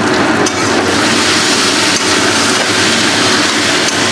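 Yogurt-marinated chicken sizzling steadily in hot mustard oil in a steel kadai, with a spatula stirring and scraping through the pieces.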